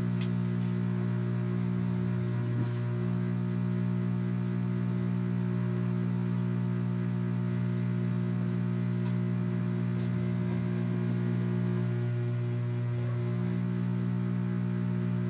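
Steady electrical mains hum, a low buzz with several evenly spaced overtones, from a CRT television and set-top box on a blue no-signal screen.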